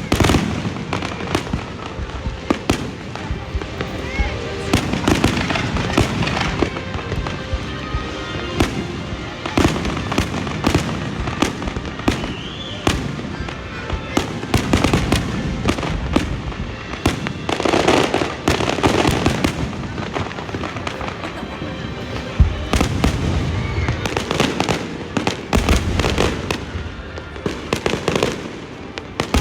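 Fireworks display: a dense, continuous barrage of shell bursts and crackling bangs, several a second, with heavier clusters of bangs at times.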